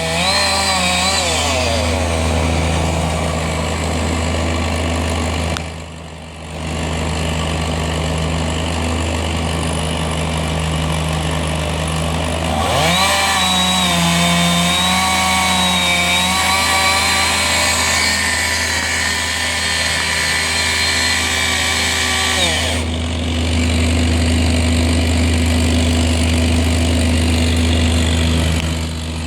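Two-stroke chainsaw engine running throughout, mostly at a lower steady speed, revved up to a high, held speed for about ten seconds in the middle before dropping back down.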